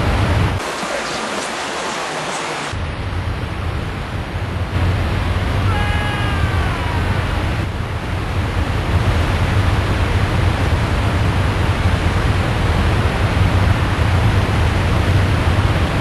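Roar of Niagara Falls: a loud, steady rush of falling water with a deep rumble beneath it. The rumble drops away for a couple of seconds near the start. About six seconds in, a brief high cry sounds over the water.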